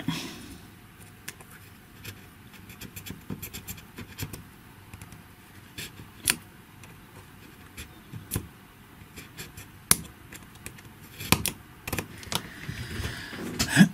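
Small hand tool scraping and cutting at a hard plastic part of a hair straightener's plate mount: irregular scratching with scattered sharp clicks, several of them close together near the end.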